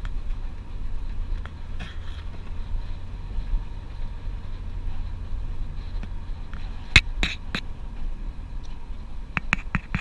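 Steady low road rumble of a vehicle driving, heard from inside the cabin, with a few sharp clicks about seven seconds in and a few more near the end.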